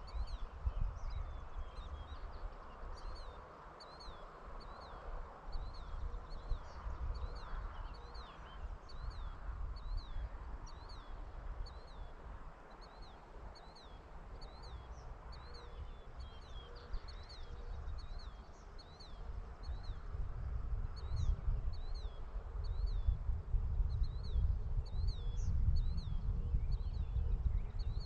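A bird calling over and over with short, high chirps, about one a second, over a low gusty rumble that grows louder in the last few seconds.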